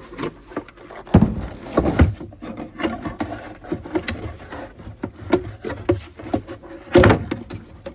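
Tube radio's cabinet and back panel being handled and pulled loose: irregular knocks, bumps and rubbing, with loud thumps about a second in, at two seconds and near the end.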